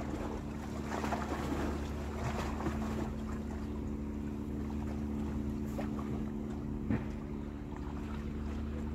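Flowing river water and light wind, under a steady low hum from an unseen motor, with one sharp knock about seven seconds in.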